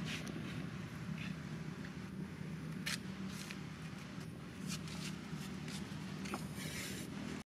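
An engine idling with a steady low hum, with a scattering of short light scuffs and rustles.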